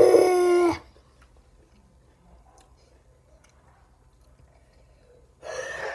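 A girl's loud, drawn-out cry lasting under a second at the start, then quiet chewing of crunchy Takis chips with faint small clicks, and a short breathy vocal sound near the end.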